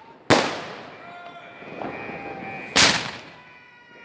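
Fireworks exploding: two loud bangs about two and a half seconds apart, each trailing off in a rumble.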